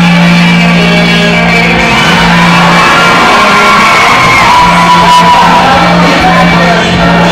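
Loud recorded music playing over an auditorium's speakers as the backing track for a dance routine, with shouts and whoops from the audience over it.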